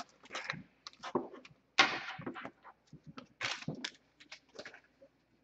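Foil wrapper of a hockey card pack crinkling and rustling in irregular bursts as the cards are pulled out and handled.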